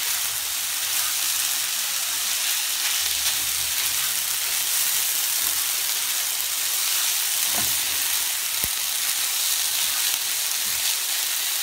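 Cooked quinoa stir-frying in oil in a pan: a steady sizzle, with the spatula stirring and turning it.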